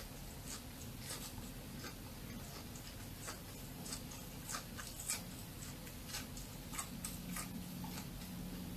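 Close-miked chewing of crunchy churros: irregular crisp crackles and mouth clicks, a few a second, with another bite near the end.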